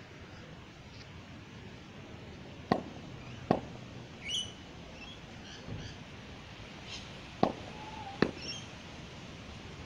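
Cricket ball and bat: two sharp knocks a little under a second apart, heard twice, as a bowled ball lands and is struck. Short bird chirps come in between.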